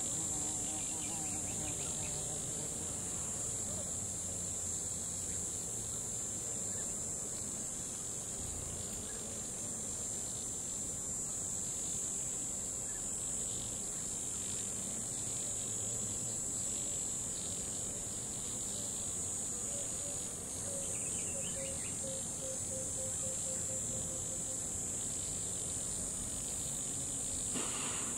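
Steady, high-pitched chorus of insects in the grass, an unbroken shrill hum.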